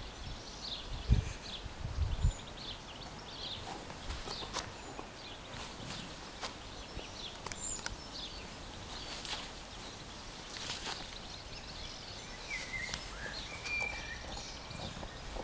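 Birds chirping in the background, with scattered soft clicks and rustles as a chocolate Labrador chews a plush trout toy. There are a couple of low bumps in the first two seconds.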